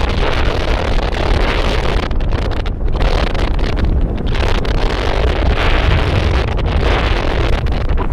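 Strong wind buffeting the microphone: a loud, steady, gusting rumble with a hiss over it.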